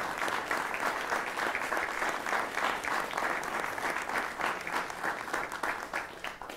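Audience applauding, a steady dense clapping of many hands that starts to die away at the very end.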